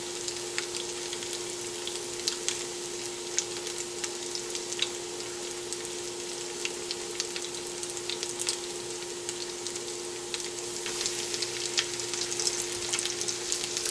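Oil sizzling in a cast-iron skillet where a potato cake is frying, with many sharp scattered pops. The sizzle grows louder near the end as a floured potato cake goes into the oil. A steady hum runs underneath.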